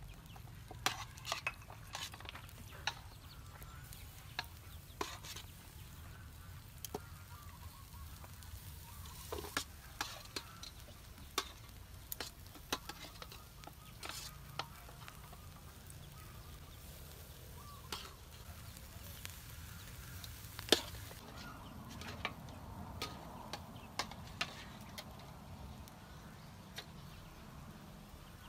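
Metal tongs clicking and scraping against a wire grill grate and a metal bowl as chicken feet are laid over a charcoal fire, with a faint sizzle. The clicks come scattered and irregular, the loudest a sharp clack about twenty seconds in.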